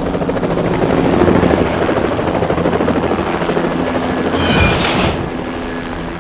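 Helicopters flying: a rapid rotor chop over a steady engine drone, with a brief louder swell about four and a half seconds in, easing off slightly toward the end.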